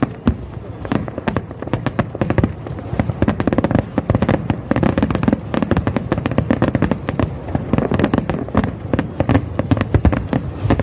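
Aerial fireworks display with shells bursting in quick succession: a dense, unbroken run of sharp bangs and pops, several a second.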